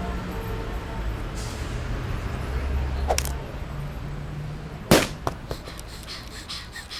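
Cartoon sound effects: a low steady rumble, a short sharp click about three seconds in, then a loud single thump about five seconds in followed by a few smaller knocks.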